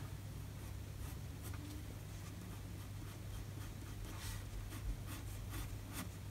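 Pencil scratching on paper in short, quick strokes, shading a drawing. The strokes grow more frequent in the second half, over a low steady hum.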